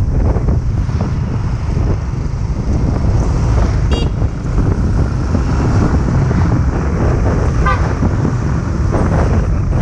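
Wind buffeting an action camera's microphone on a moving motorbike, over the steady low rumble of the ride. Two short beeps, like traffic horns, come about four seconds in and again near eight seconds.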